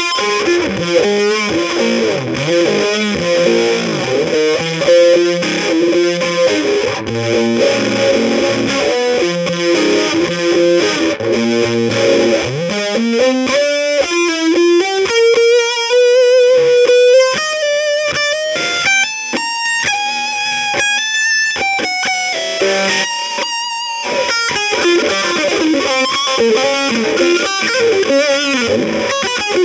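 Music: distorted electric guitar playing chords, then, about halfway through, a slow upward slide into held single notes that climb in steps, before the chords return near the end.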